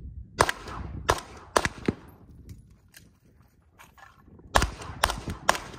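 Gunshots at a shooting range, fired in two quick strings: four sharp reports in about a second and a half, a pause, then three more in quick succession, each with a short echo.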